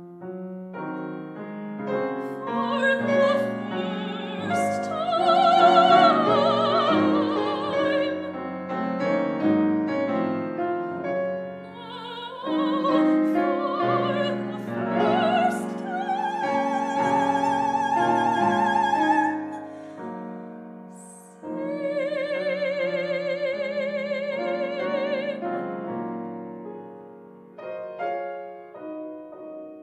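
Operatic soprano singing with wide vibrato over piano accompaniment, in three long phrases; the last is a long held note that ends about three-quarters of the way through, after which the piano plays on alone.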